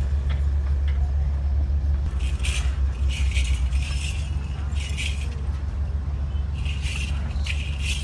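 An engine running with a steady low hum, with short scraping and scuffing noises over it several times from about two seconds in.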